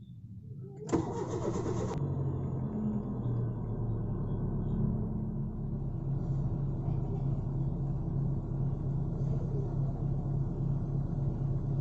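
Hyundai Getz engine cranked on the starter for about a second, catching quickly and then idling steadily: a quick start after its throttle body was cleaned to cure hard starting.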